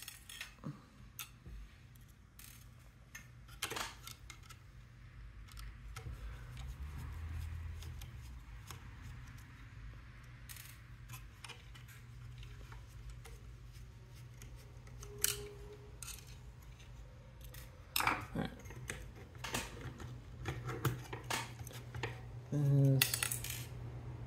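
Small screws and aluminium robot-arm brackets clicking and clinking as a screwdriver works the servo-horn screw and the parts are handled, in scattered separate clicks. A louder clattering rattle comes near the end as a bracket is pulled free. A steady low hum sits underneath.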